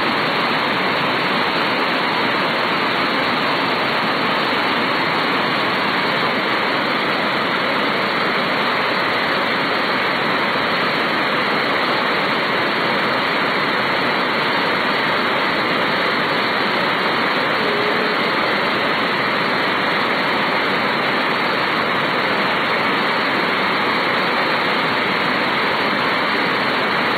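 Athirappilly Falls in full flood: a loud, steady rush of falling water that never lets up.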